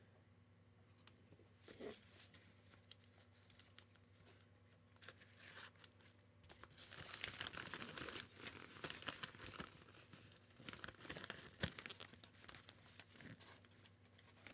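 Faint rustling and crinkling of an octagonal softbox's fabric and frame rods being handled while it is opened out. The handling is busier in the middle, with a sharp tick a little over two-thirds of the way through.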